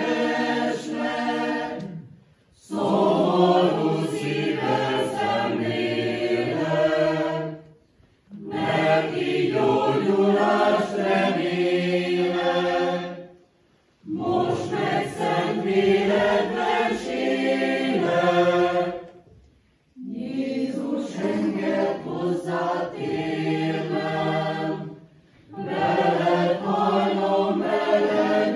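Mixed church choir of women's and men's voices singing unaccompanied, in phrases of about five to six seconds, each broken by a short pause for breath.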